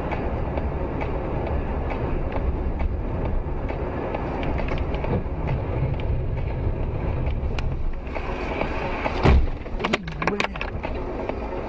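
Steady road and tyre rumble of a car driving at speed on a winter highway, heard from inside the car. About nine seconds in comes one loud thump, followed by a few lighter knocks.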